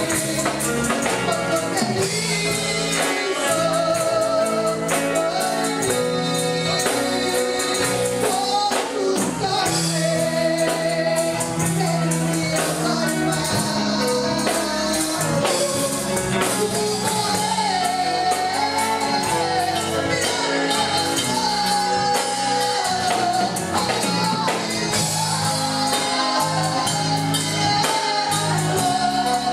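Church worship music: singing over a band, with a tambourine keeping a steady beat.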